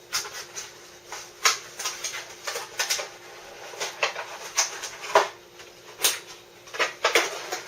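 Handling of cardboard packaging and a small plastic LED flashlight: a string of irregular clicks, taps and rustles, the sharpest about six seconds in.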